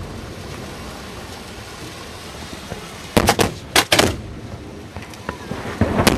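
Display fireworks going off: a quick run of three sharp bangs about three seconds in, two more just under a second later, and another near the end.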